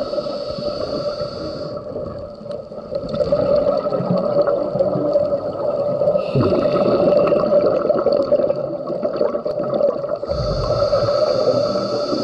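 A scuba regulator heard underwater, breathing in turns: a hiss on each inhale, about three times, alternating with a low bubbling rumble of exhaled air, over a steady hum.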